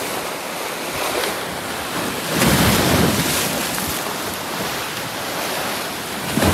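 Sea waves breaking and washing into the shallows: a continuous rush of surf, swelling into a louder surge about two and a half seconds in and again at the very end.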